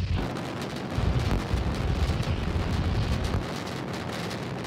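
Starship SN8's three Raptor rocket engines firing in ascent: a continuous crackling roar that swells about a second in.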